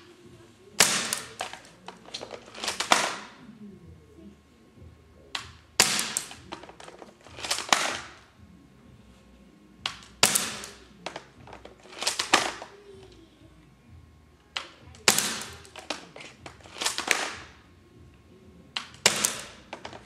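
X-M8 airsoft rifle firing single shots at a CD taped to a target, each shot a quick group of sharp snaps, repeated every two seconds or so; the BBs hit and crack the CD.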